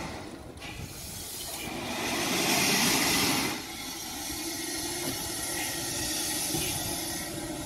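Steam locomotive letting off steam: a loud hiss lasting about two seconds starting a couple of seconds in, then dropping to a quieter steady hiss.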